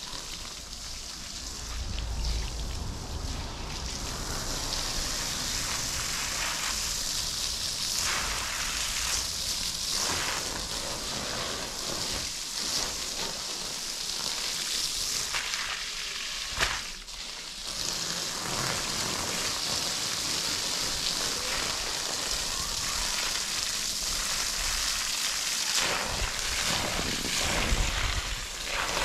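Water spraying from a hose in a steady hiss, washing down a surface. It starts about two seconds in and cuts out briefly a little past the middle, with a few light knocks along the way.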